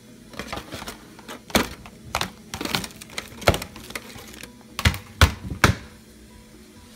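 Half a dozen or so sharp, irregularly spaced clicks and knocks around a kitchen trash can lined with a plastic bag.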